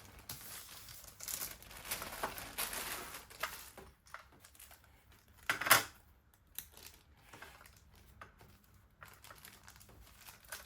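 Plastic packaging crinkling and rustling as it is handled, busiest in the first few seconds, with one louder crackle about five and a half seconds in and sparser rustles after.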